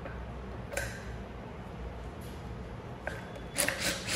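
Handling noise from a plastic pump housing and a socket: a light knock about a second in, then a few quick clicks and knocks near the end as a cordless drill's socket is fitted onto a bolt. The drill motor does not run.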